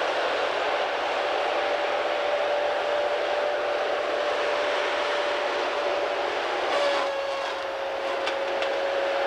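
Timberjack 618 tracked feller buncher running, with a steady high whine over the machine noise. A little before 7 s the whine drops slightly in pitch and a few sharp cracks follow as the felling head cuts into trees.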